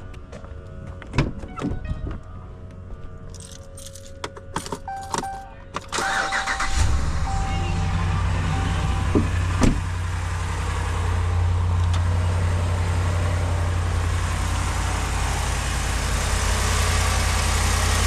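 Dodge Ram's 5.7-litre Hemi V8 starts about six seconds in after a few clicks and knocks, then settles into a steady idle with a single knock a few seconds later. The idle is free of the ticking that new exhaust bolts, a new seal and a new muffler were fitted to cure, and the owner judges it good, with no issues.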